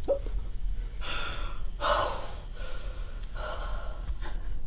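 A person breathing hard close to the microphone: about three heavy, gasping breaths.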